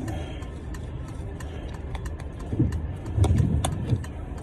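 Spring-loaded scissors of a Leatherman Wingman multi-tool snipping a disposable coffee cup, a run of sharp clicks as the cup's edge is trimmed round. Underneath is a steady low hum, and louder bumps come about three seconds in.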